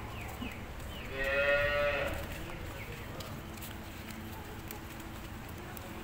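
A cow moos once, a single call of about a second, starting about a second in.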